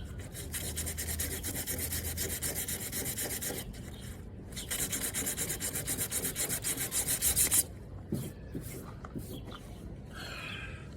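Sanding on the Mitsubishi Eclipse's rear fender: rough scraping back and forth in quick strokes, in two runs with a short break about four seconds in. It goes quieter for the last few seconds.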